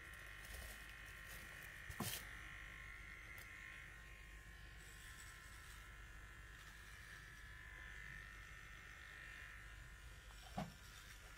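Small cordless pet hair clipper running with a faint, steady buzz as it shaves a Shih Tzu's belly fur. There are two brief knocks, about two seconds in and near the end.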